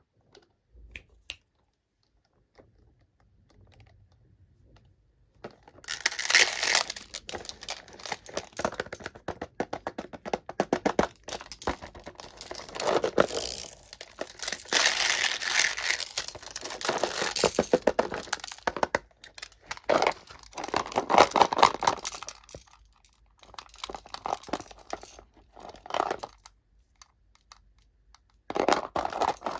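Packaging being crinkled and torn open by hand: a few faint clicks, then a long stretch of dense crackling from about six seconds in, breaking into shorter bursts of crinkling near the end.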